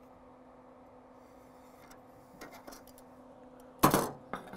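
Quiet background with a steady low hum and a few light ticks, then about four seconds in a sudden loud clatter of metal being handled, followed by a second, smaller knock half a second later.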